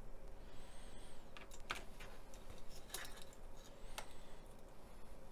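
A few scattered light clicks and taps of small plastic model-kit parts being handled and fitted together.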